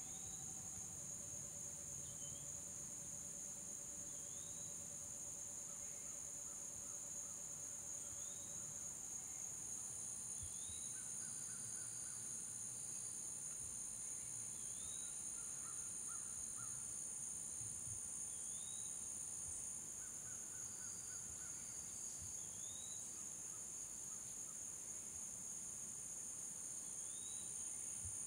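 Steady, high-pitched chorus of summer insects, with a bird repeating a short rising whistled note about every two seconds.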